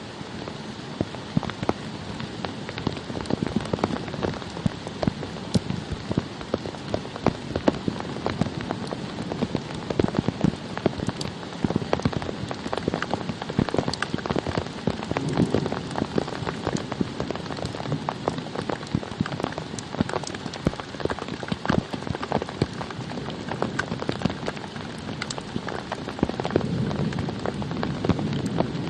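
Steady rain falling on a surface, with many separate drops tapping close by at an irregular, dense pace.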